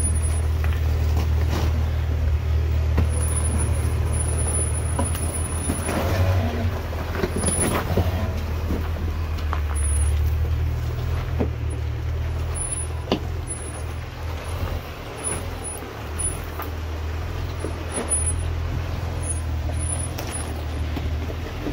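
Jeep Wrangler JK's engine running low and steady as it crawls slowly over rocks in low gear, with a few sharp knocks and crunches from rock under the tyres.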